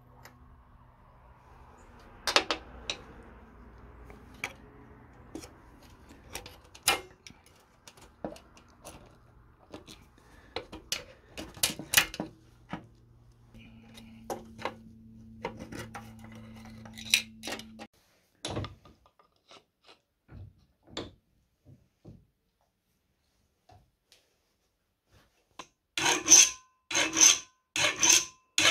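Scattered metallic clicks and taps as screwdrivers lever at a valve spring in a lawnmower engine block. Near the end, a flat file rasps in even strokes, about two a second, across a valve clamped in a vise, filing it down to set the valve clearance.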